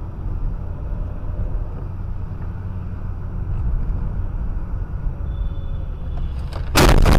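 Steady low road and engine rumble inside a moving car. Near the end it is cut by a sudden, very loud crash: the noise of an impact.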